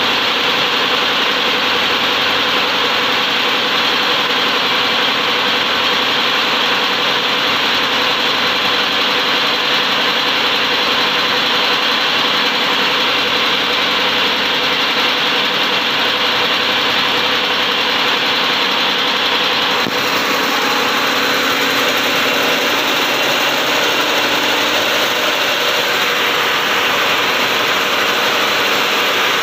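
Four-servo paper straw individual packing machine running steadily, a loud continuous machine din with several steady tones; its tone shifts slightly about two-thirds of the way through.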